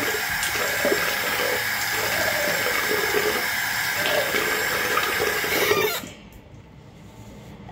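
Bathroom sink tap running while water is splashed onto the face from cupped hands; the running water cuts off abruptly about six seconds in, leaving only faint sounds.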